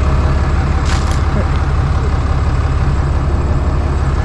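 Truck engine running steadily, a low even rumble, with a couple of light clicks about a second in.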